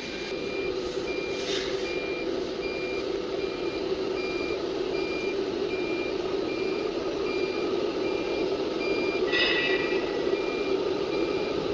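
CNC router beeping in a steady series of short, high beeps while its X axis homes, over a steady machine hum. A brief noisy burst comes about nine and a half seconds in.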